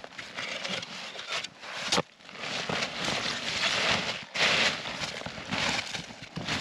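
Loose snow crunching and a plastic tarp rustling as chunks of snow are scooped and pushed onto the tarp by gloved hands, in irregular scrapes, with a sharp click about two seconds in.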